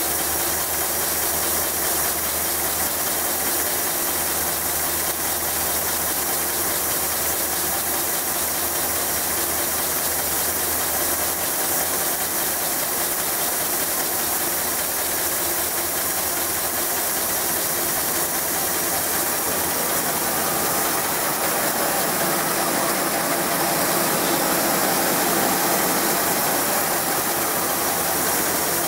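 Laser engraving machine engraving a wooden board: the laser head shuttling rapidly back and forth with a mechanical rattle over a steady hiss of air.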